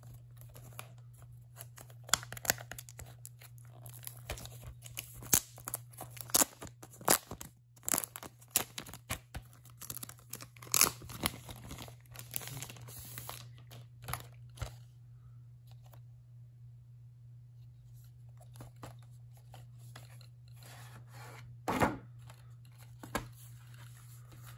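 Packaging of a Blu-ray box set being torn open and crinkled by hand. A dense run of sharp rips and crackles gives way to quieter handling, with one loud crack near the end.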